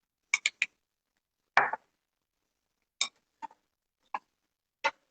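A spoon clinking and knocking against a bowl and plate while salsa is served out: about eight separate short taps, three in quick succession at the start and a slightly longer scrape-like knock about a second and a half in.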